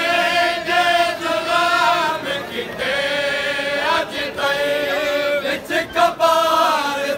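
A crowd of men chanting a noha (Shia lament) together in long, held sung lines. A few sharp slaps of hands striking chests in matam come about four and six seconds in.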